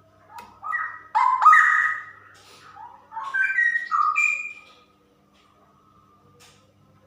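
Female straw-headed bulbul singing a burst of rich, clear whistled notes that step up and down in pitch, starting about half a second in and stopping just before five seconds.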